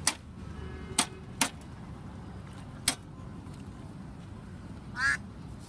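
Cleaver chopping on a round wooden chopping block: four sharp knocks at uneven intervals over the first three seconds. Near the end comes a short animal call.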